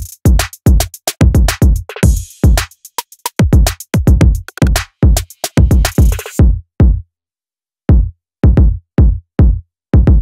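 Background music: a drum-machine hip-hop beat with regular deep kick drums. It breaks off for about a second after the middle, then the beat comes back.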